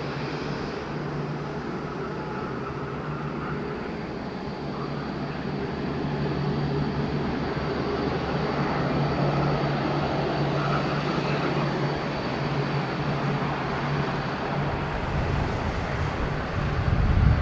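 Jet airliner on approach to land: a steady engine roar with a thin high whine, growing gradually louder, and a deep low rumble swelling near the end.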